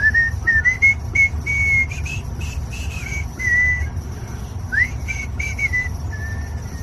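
A run of clear, pure whistled notes, each held briefly at nearly the same high pitch and stepping up and down like a simple tune, with one quick rising sweep about two-thirds of the way through. A steady low hum runs underneath.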